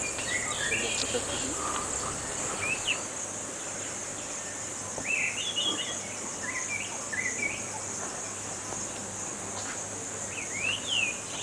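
Steady high-pitched insect chorus, like crickets, with birds calling in short clusters of chirps: just after the start, around three seconds in, again from about five to seven seconds, and near the end.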